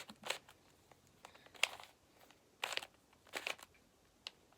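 Plastic layers of a YJ Guanlong Square-1 puzzle being turned by hand: four short bursts of plastic clicking and scraping, about a second apart.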